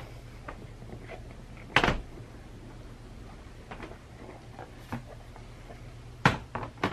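Cardboard model-locomotive box being handled and opened: a sharp thump a little under two seconds in, a few light taps and rustles, then two more knocks near the end as the box is set down on the table.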